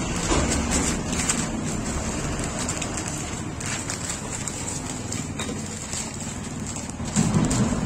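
Paper and newspaper rustling and crinkling as they are folded and pressed by hand around a parcel, in uneven spells of crackling over steady background noise.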